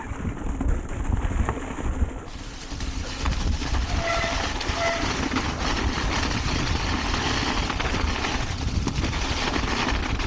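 Mountain bike riding downhill over rough ground with a constant rumble of tyres, rattle and wind. Its brakes squeal briefly twice, about four and five seconds in.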